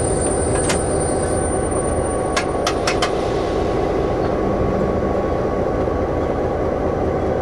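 A DSB MY-class diesel-electric locomotive, with its GM/EMD two-stroke engine, running steadily, heard from inside the cab as a dense, even rumble. There are a few sharp clicks, one about a second in and a quick cluster of four around two and a half to three seconds in.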